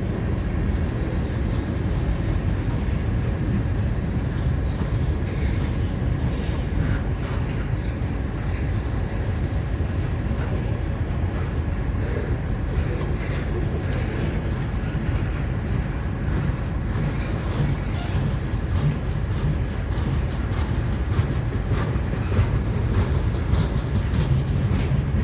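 Florida East Coast Railway freight train cars rolling past: a steady rumble of steel wheels on rail with a continual scatter of clicks and clatter.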